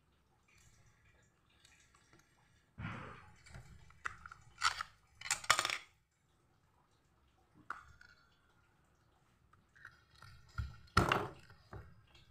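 Irregular handling noises: scattered clicks, knocks and light clatter, with the loudest bunched about five seconds in and one more near the end.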